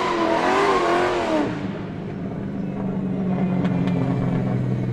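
Car engine revving for about a second and a half, the pitch swinging up and down, then settling into a steady low idle.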